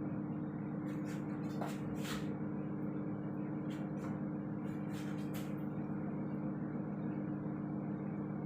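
Steady machine hum made of several low tones, like a running motor, with a few brief clicks and short rustles scattered through the first half.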